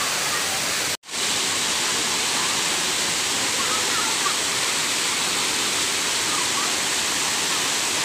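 Waterfall's falling water: a loud, steady rush. The sound cuts out for an instant about a second in, then comes straight back.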